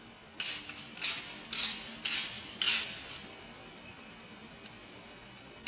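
Fine-mist pump spray bottle sprayed at the face five times in quick succession, each pump a short hiss that fades, about half a second apart.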